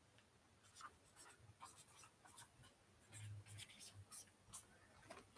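Faint scratching of a felt-tip marker writing on a notepad page, a series of short quick strokes.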